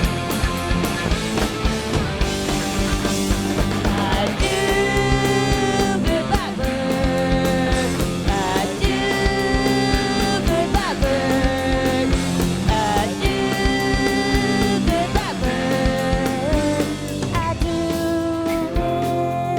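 Punk rock band playing a song: electric guitars over a steadily pounding drum kit, with held melody notes from about four seconds in.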